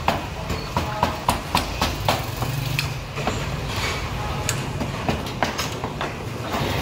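Chinese cleaver chopping roast pork and char siu on a round wooden chopping block: a quick series of sharp chops, thickest in the first two seconds or so and sparser after, over a steady low hum.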